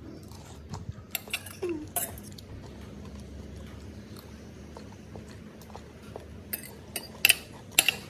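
Metal fork and spoon clinking and scraping against a plate while eating: a few light clicks early on, then a quicker run of louder clinks near the end.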